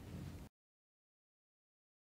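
Near silence: a faint fading tail in the first half second, then the sound cuts off to complete silence.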